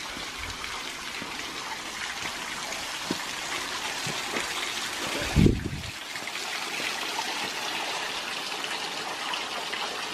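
Water trickling and splashing steadily over rocks, with one dull thump about halfway through.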